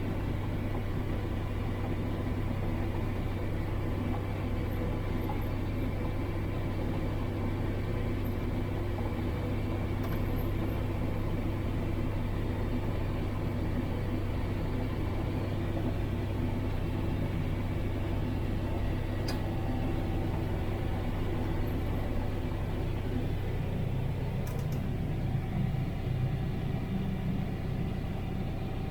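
Combine harvester running steadily while harvesting corn: a constant low engine and machinery drone.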